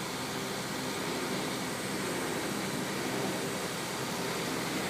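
Diesel engines of heavy construction plant, a telehandler and a drilling rig, running steadily, over a constant hiss.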